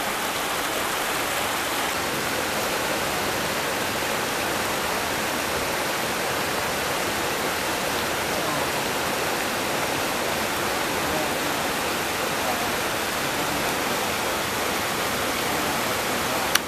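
Stream water rushing over smooth rock slabs and small cascades: a steady, even rush that does not change.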